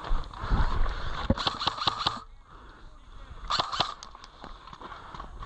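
Airsoft gunfire: a quick run of sharp snapping shots about a second in, then a short burst of three near the four-second mark, with wind rumbling on the microphone at the start.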